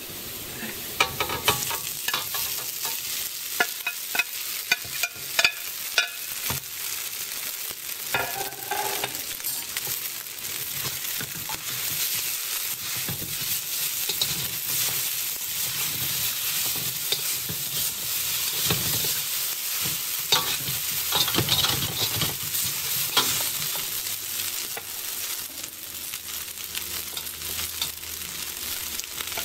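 Boiled noodles and chopped garlic sizzling in hot oil in a wok while a metal spatula tosses them, scraping and clacking against the pan. The sharp clacks come thickest in the first several seconds, then the sizzle and stirring carry on steadily.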